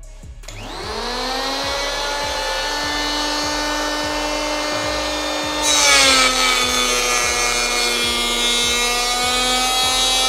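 Bosch GHO 26-82D electric planer (710 W), mounted upside down as a bench planer, switches on and its whine rises to full speed. About halfway through, a piece of kikar (babool) hardwood is fed across the cutter drum. The pitch drops slightly under the cutting load, and a rougher shaving noise joins the whine.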